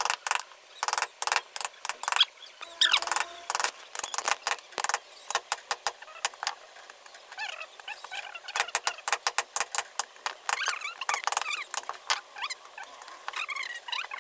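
Wooden mallet striking a carving gouge as it cuts into a wood carving: quick runs of sharp knocks, several a second, broken by short pauses.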